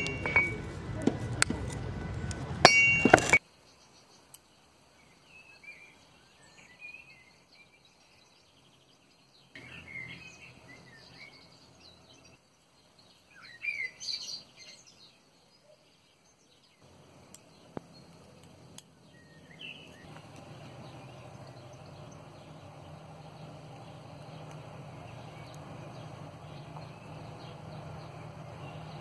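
Steel mail rings clinking over music, which cuts off suddenly after about three seconds. Then a faint outdoor background with birds chirping now and then, and from a little past halfway a steady low hum.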